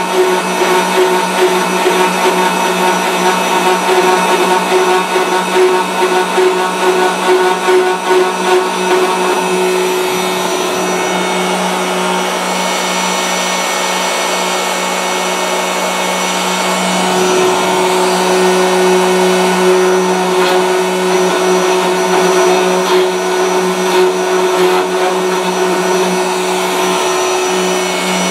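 Router motors of a gunstock duplicating carver running steadily with a hum and whine while their cutters carve English walnut stock blanks. The sound is choppy for the first several seconds, then steadier.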